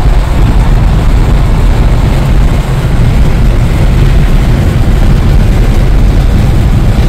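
Steady road and wind noise inside a moving car's cabin at highway speed, heaviest in the low rumble.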